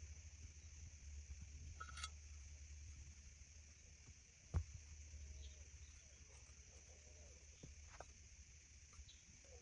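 Near silence: faint steady outdoor ambience with a high hiss and a low rumble, broken by a single sharp knock about four and a half seconds in.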